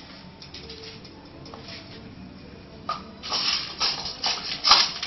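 Rottweiler puppy eating dry kibble: crunching with the kibble rattling and scraping, faint at first and much louder in the second half.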